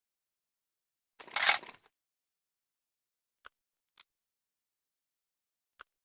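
M16A1 rifle parts being handled: one loud metallic clack and slide a little over a second in, followed by three faint clicks spread over the next few seconds.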